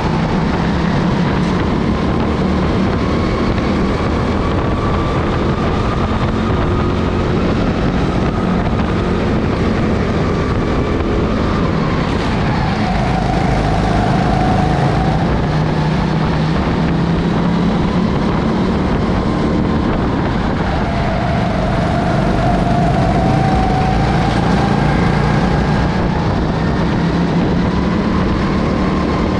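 Go-kart engine heard onboard, running hard at racing speed. Its pitch dips twice as the kart slows for corners and climbs again as it accelerates out.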